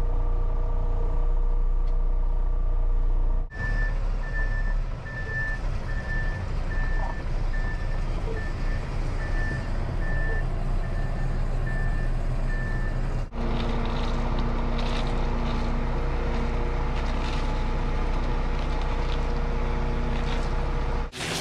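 Cement mixer truck's diesel engine running, heard from inside the cab. For about ten seconds in the middle, the truck's back-up alarm beeps steadily, a little under once a second, as the truck reverses.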